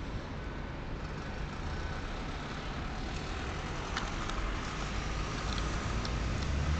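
Road traffic noise, with a vehicle engine's low rumble growing louder over the second half.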